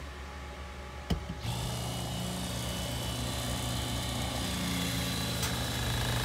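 A click, then a SEAFLO 33-Series 115 V diaphragm water pressure pump starts up about a second and a half in. It runs with a steady electric hum while pumping water.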